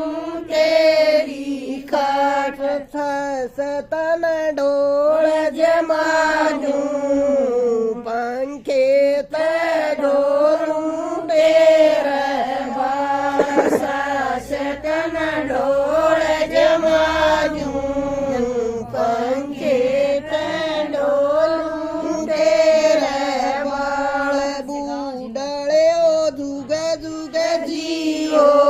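Women singing a Haryanvi folk song, one long unbroken melodic line with held, wavering notes.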